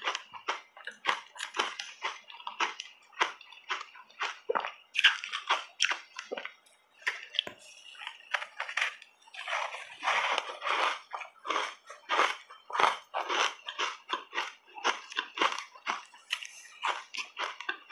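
Close-up chewing and biting into a soft-ice buckwheat cupcake thickly coated in matcha powder: a rapid run of crunches and wet mouth clicks, busiest about halfway through.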